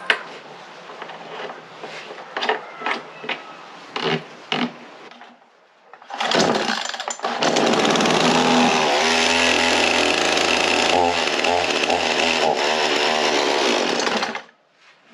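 Clicks and knocks of the Stanley chainsaw being handled. About six seconds in the chainsaw starts up and runs loud and steady for about seven seconds, then cuts off suddenly.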